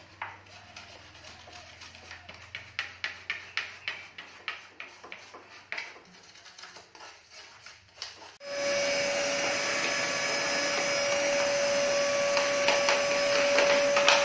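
A run of light clicks and knocks as parts are handled in a motorcycle frame. About eight seconds in, a vacuum cleaner starts and runs steadily with a high, steady whine, cleaning around the overflow tank mount.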